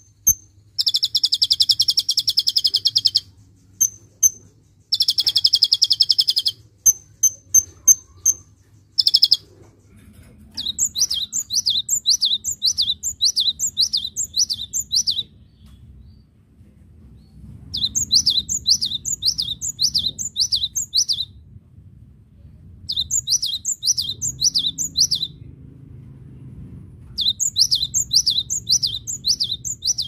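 For the first nine seconds or so, a caged 'kolibri ninja' sunbird gives sharp, high chips and two long, buzzy trills. From about ten seconds in, a cinereous tit (gelatik batu) sings quick repeated two-note whistled phrases, in four bouts separated by short pauses.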